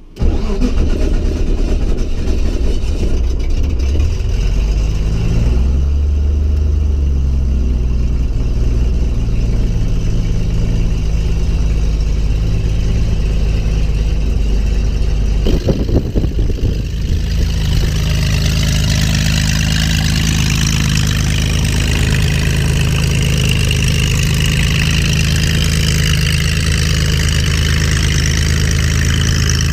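Corvair-based air-cooled flat-six aircraft engine cranked on the starter, catching at once and settling into a steady idle with the propeller turning. A few knocks come about sixteen seconds in, after which the engine is heard from outside the plane with a brighter hiss over it.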